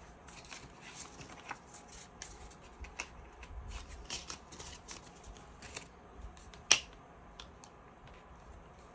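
Soft rustling and clicking of paper banknotes and the plastic pages of a ring-binder cash-envelope organiser being handled and flipped, with one sharper click about two-thirds of the way through.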